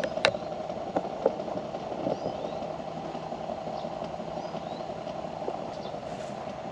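Outdoor ambience: a steady hum, with faint bird chirps and a few light clicks near the start.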